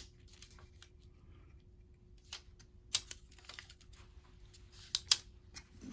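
Scattered light clicks and taps of small plastic laptop parts being handled as a cable is threaded into place inside an open laptop, two of them in quick succession near the end, over a faint steady hum.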